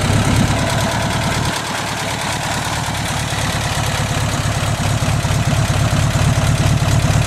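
The air-cooled flat-four engine of a Volkswagen Type 2 bus idling steadily, heard close up at the open rear engine lid.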